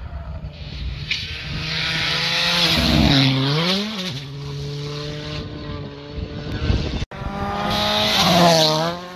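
Rally2-class rally cars at full speed on a tarmac stage. First a Hyundai i20: its engine note drops sharply about three seconds in as it brakes and downshifts into a bend, then climbs again as it accelerates away. After an abrupt cut about seven seconds in, a Volkswagen Polo rally car's engine rises and then falls as it passes.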